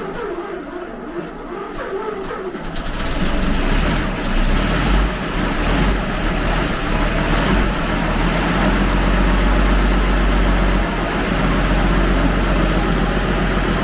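1919 Studebaker engine cranking on the starter, catching about three seconds in, then running unevenly before settling into a steady idle.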